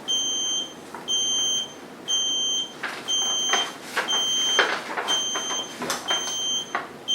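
AmiCane smart walking cane sounding its fall-detection alert: a high electronic beep of about half a second, repeating about once a second, with light handling clicks and rustles between the beeps.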